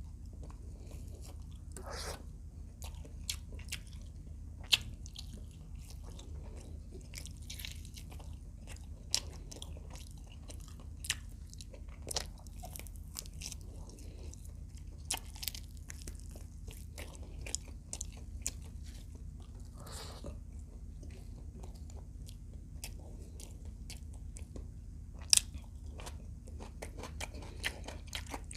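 Chewing and crunching on fried adobo quail, with sharp bites and cracks coming irregularly; the loudest falls about five seconds in, and another comes near the end. A steady low hum runs underneath.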